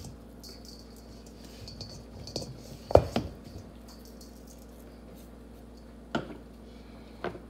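Stainless steel mixing bowl knocked and clanking: a loud clank with a short ring about three seconds in, a second one right after, and two lighter knocks near the end. Between them are faint soft ticks from dried sage being shaken out of a spice container.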